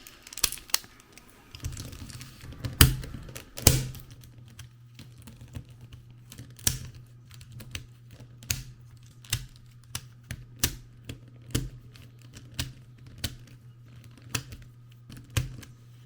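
Plastic 3x3 speed-cube pieces being pushed and snapped into place by hand: a run of sharp, irregular clicks and taps, with two louder snaps about three seconds in. A low steady hum runs under them from about two seconds in.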